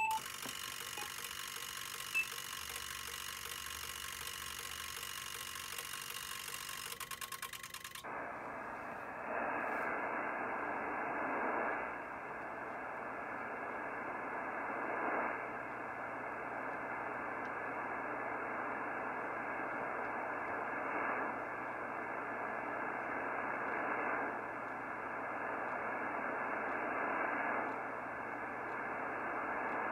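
Shortwave receiver static from a Yaesu FTDX-3000 HF transceiver being tuned across the 20-meter amateur band: steady hiss with a few slow swells and no clear stations, the sound of a band nearly dead during the solar minimum. For about the first eight seconds a steady buzz with many overtones is heard instead, before the receiver hiss takes over.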